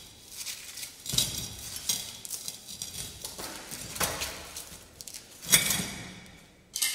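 Metal cylindrical mould of a compacting factor apparatus being tipped over and knocked against a tray to empty out fresh concrete: a few sharp clanks, the loudest near the end, with wet concrete scraping out between them.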